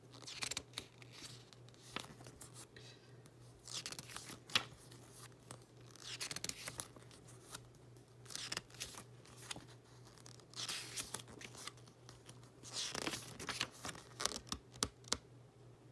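Pages of a CD album's lyric booklet being turned by hand: a series of soft paper swishes and small clicks every second or two.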